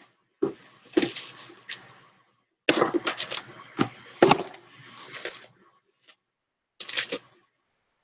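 Plastic cling wrap crinkling and rustling as it is handled, in three short spells full of sharp crackles.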